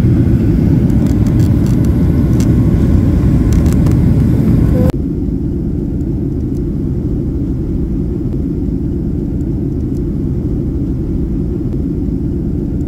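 Cabin noise of a Ryanair Boeing 737 airliner descending: a steady low rumble of engines and airflow heard from inside the cabin. About five seconds in it drops suddenly to a quieter, duller rumble.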